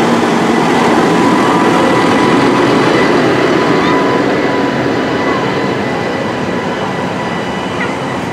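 Massey Ferguson tractor towing a tandem-axle K-Two trailer drives slowly past close by: a steady engine and rolling-trailer din with a faint high whine. It eases off a little in the second half as the rig moves away.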